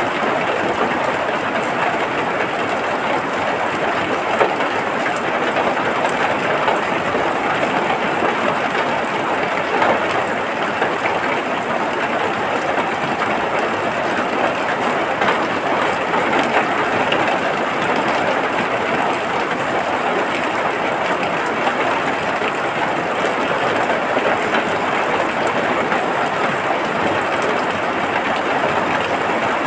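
Steady rain falling: an even, dense hiss with a few brief louder drop ticks.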